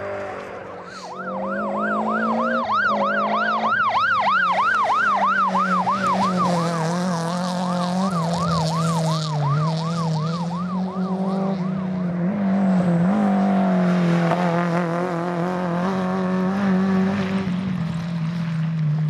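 Rally course car's siren yelping in fast rising-and-falling sweeps, about three a second, for roughly ten seconds. It then gives way to a slower wavering tone, with a steady low drone underneath.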